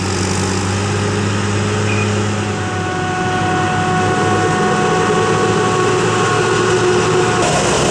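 Heavy maize-harvest machinery running steadily, its diesel engines humming, with a steady high whine coming in a few seconds in. The sound changes abruptly near the end.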